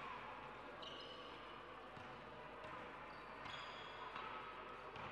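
Basketball play on an indoor court: a ball bouncing on the floor, with sneakers squeaking in short high-pitched bursts about a second in, around the middle, and near the end, over the faint hum of the hall.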